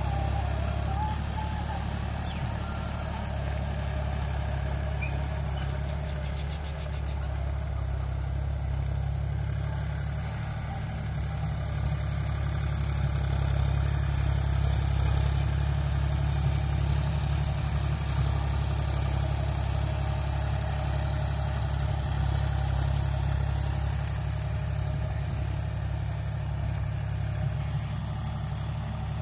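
John Deere 5105 tractor's three-cylinder diesel engine running steadily under load while driving a rotary tiller through the soil.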